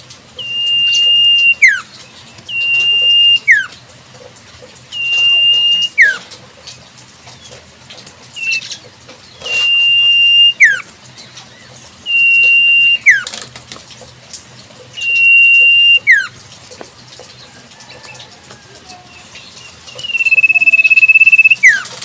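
Common iora (cipoh) calling: a steady, high whistled note held for about a second that ends in a quick downward slur. It comes eight times, one of them brief, with a pause of about four seconds before a longer final whistle near the end.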